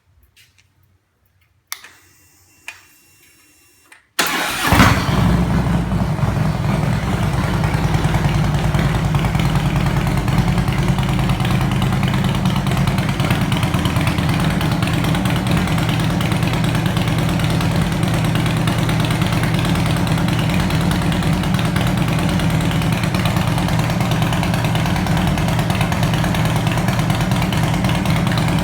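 Harley-Davidson Road King Classic V-twin with Freedom Performance fishtail mufflers. A few faint clicks, then about four seconds in the engine starts with a brief rise as it catches, and settles into a steady idle through the exhaust.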